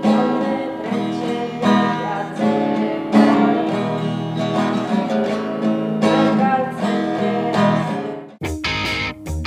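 Acoustic guitar strummed in a steady run of chords. About eight seconds in, the sound cuts abruptly to different, choppier music with sharp, repeated hits.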